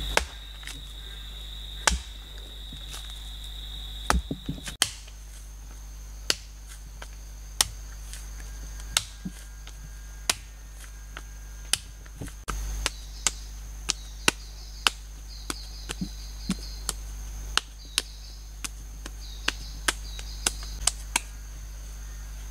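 A lump of wet termite-mound clay slapped and pressed down on a flat stone by hand, a sharp slap about every second and a half. Behind it runs a steady high-pitched insect drone that changes pitch about five seconds in.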